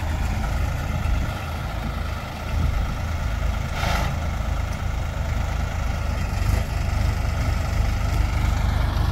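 Compact tractor's diesel engine running steadily as it pulls a potato digger through the field, with a brief hiss about four seconds in.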